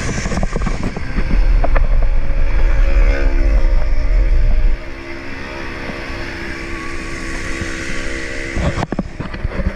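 Wind buffeting the microphone while riding on the road, with a steady vehicle engine hum from traffic. The heavy low wind rumble cuts off suddenly a little before halfway.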